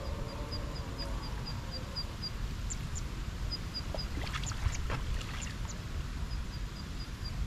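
A bird calling in runs of short, high, evenly spaced pips, about five a second, over a steady low rumble, with a few sharp clicks near the middle.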